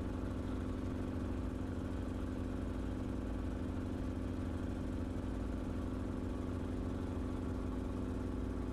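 Steady drone of an Enstrom helicopter's engine and rotor in cruise flight, with an even hum that holds one pitch throughout.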